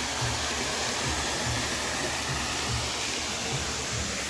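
Steady rushing and splashing of a water fountain, an even hiss of falling water with some low rumbling underneath.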